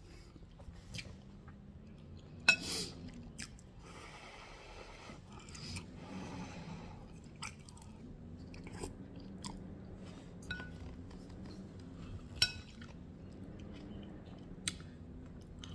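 A person chewing food close to the microphone, with crunching bites and scattered sharp clicks; the two loudest clicks come about two and a half seconds in and about twelve seconds in.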